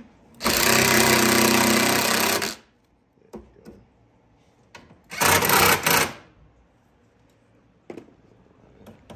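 A power wrench running bolts down into the radiator mounting, in two bursts: a run of about two seconds near the start, then a shorter run of about a second midway. A few light metal clicks come between.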